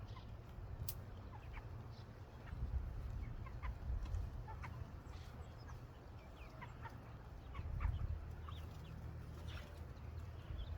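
Flock of meat chickens (broilers) clucking and peeping, with many short high calls scattered through, over a steady low rumble.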